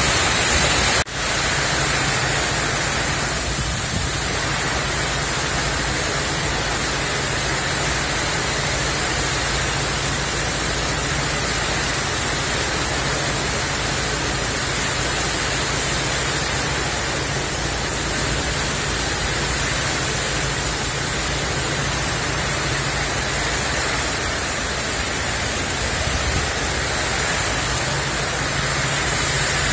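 Heavy, wind-driven rain pouring down in a thunderstorm: a dense, even hiss with no distinct thunderclaps. It cuts out for a moment about a second in.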